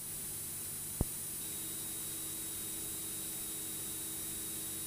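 Steady static hiss with a faint hum from the cockpit's radio/intercom audio between transmissions, with a single sharp click about a second in.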